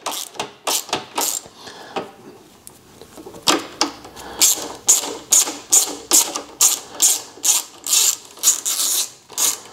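Ratcheting hand driver with a T30 Torx bit clicking in quick repeated strokes as it backs out a bolt on a motorcycle's shift linkage. The clicks come about three a second and get steadier and louder from about three seconds in.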